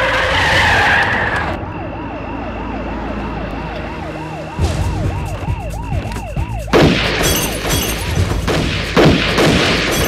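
Police siren wailing in quick rising-and-falling cycles, about three a second, over car noise. From about seven seconds in it gives way to louder noisy screeches and sharp hits of cars pulling up.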